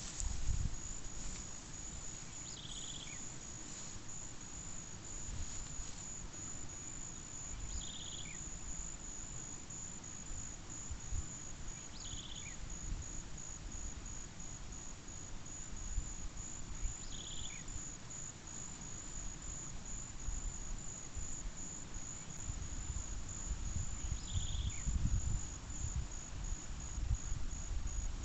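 Insects trilling steadily at a high pitch, with a short chirp repeating about every four to five seconds and a low rumble underneath.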